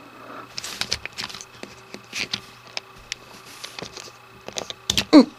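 Light, irregular plastic clicks and taps as the arm of a Trackmaster toy breakdown crane is moved and adjusted by hand, with a brief vocal sound near the end.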